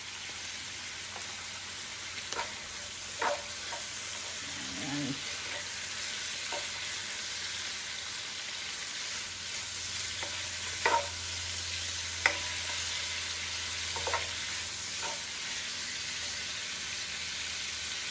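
Shrimp frying in vegetable oil in a pot, a steady sizzle, with a utensil clicking against the pot now and then as they are stirred and turned.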